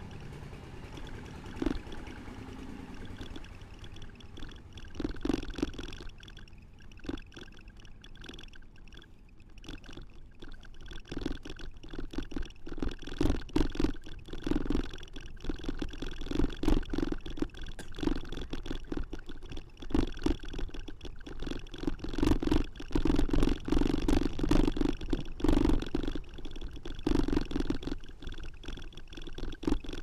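Bicycle rattling and bumping over a rough lane, with a low rumble on the camera microphone. The knocks get louder and more frequent after about ten seconds.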